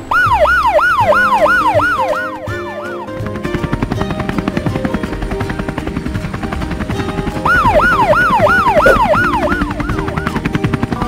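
Cartoon siren sound effect: a fast rising-and-falling wail, about three swoops a second. It comes in two runs, one at the start lasting about three seconds and another about two seconds long near the middle, over background music.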